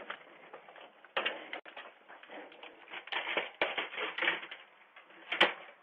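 Irregular knocks, rattles and scrapes, in clusters about a second in and through the second half, heard through a doorbell camera's small microphone.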